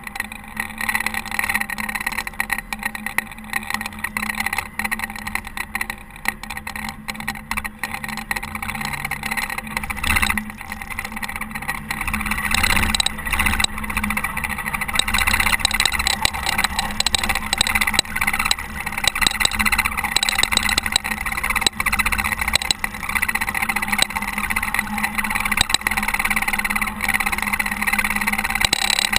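Caterpillar TH330B telehandler's diesel engine running while plowing snow, a steady hum that grows louder about halfway through.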